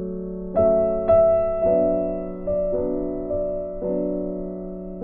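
Background piano music: soft notes and chords struck about every half second, each ringing and fading.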